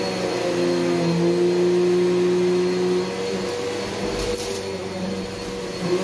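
Bissell PowerGlide Ultra vacuum cleaner running on carpet, a steady motor hum whose tones grow stronger for the first few seconds, then ease back about halfway through.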